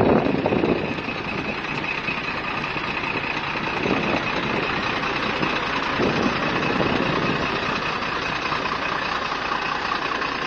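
Vehicle engine running steadily under a constant rushing noise, with a faint high steady whine; the rush swells briefly at the start and twice more mid-way.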